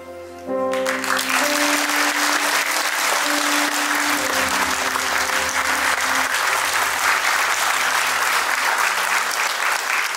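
The music ends on a held chord, and under a second in an audience bursts into applause that continues steadily while the last notes fade out beneath it.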